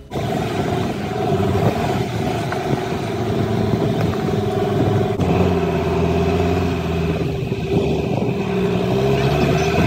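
A vehicle driving on an unsealed gravel track: engine running steadily under a constant wash of tyre and road noise, the engine note growing stronger about five seconds in.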